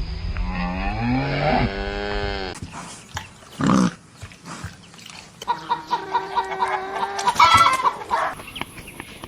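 Farm animal calls: a low drawn-out call rising in pitch at the start, then a run of quick, evenly repeated calls a few seconds later.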